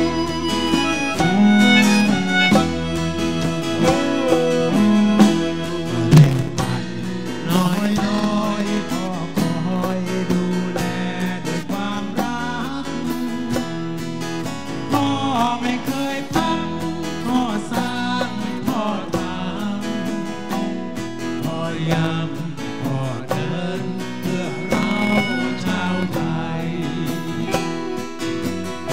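Band music with guitar and a steady beat.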